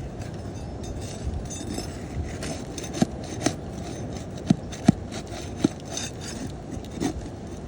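Steel flat bar scraping and prying under asphalt roof shingles to break their sealant strip, with a handful of sharp clicks and knocks from about three to seven seconds in.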